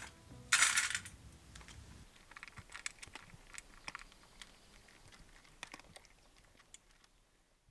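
Cats crunching dry kibble from stainless steel bowls: sharp, irregular crunching clicks at an uneven pace. A short, loud burst of noise comes about half a second in.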